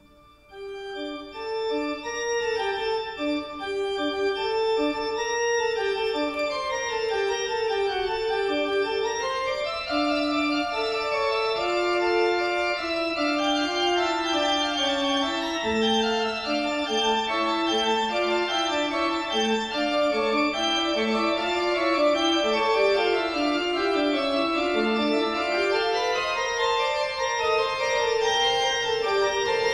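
Zwier van Dijk pipe organ playing slow, sustained music in several parts, fading in over the first couple of seconds. A lower line joins a little past halfway.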